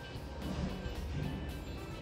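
Quiet background music.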